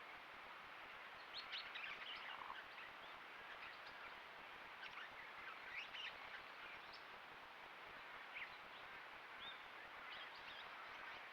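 Birds calling with short, sharp high-pitched chirps in scattered groups, over a steady faint hiss.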